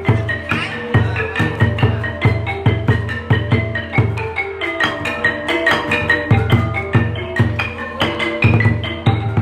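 Cambodian pinpeat ensemble playing. A roneat xylophone and a kong vong gong circle ring out a busy melody of quick struck notes, over steady deep beats from skor thom barrel drums struck with sticks.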